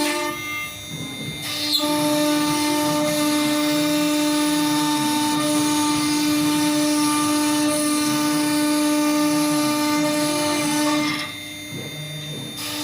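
CNC router spindle running with a steady high whine while it cuts wood. The whine drops away twice, briefly, about a second in and near the end.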